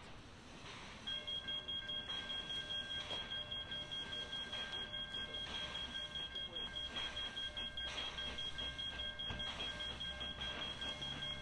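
Railway level crossing warning bell ringing rapidly, several strokes a second, starting about a second in.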